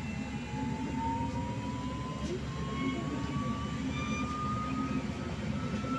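Trolleybus electric traction motor whining, the whine climbing slowly and steadily in pitch as the trolleybus accelerates, over a low rumble of the ride, heard from inside the cabin.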